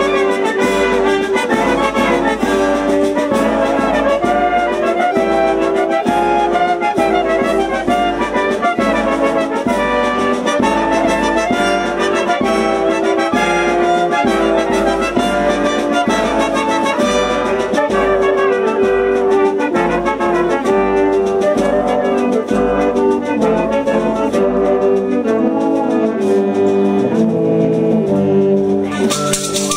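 Wind band of clarinets, saxophones and brass playing a folk tune in full, with sustained melodic notes over a steady pulse. Just before the end a bright, noisy sound joins the music.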